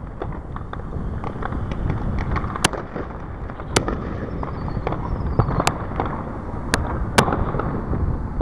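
Aerial fireworks display: five sharp, loud cracks of shells bursting over many smaller pops and crackles, with a steady low rumble beneath. A faint falling whistle is heard near the middle.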